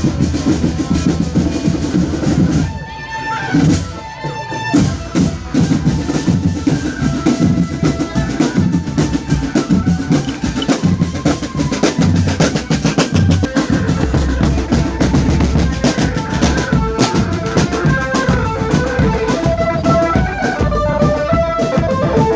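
Marching drum band playing snare and bass drums in a fast, steady beat, with a tune of pitched notes over the drumming. The drumming drops out briefly about three seconds in.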